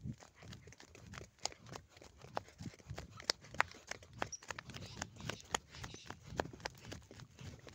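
Footsteps on a packed dirt farm track: a calf's hooves and the steps of the person leading it on a rope, heard as irregular clicks and soft thuds.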